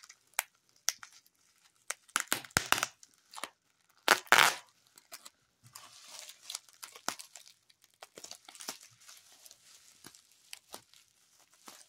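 Plastic packaging and bubble wrap being torn open and crinkled by hand: a few sharp rips in the first half, the loudest about four seconds in, then softer, continuous crinkling.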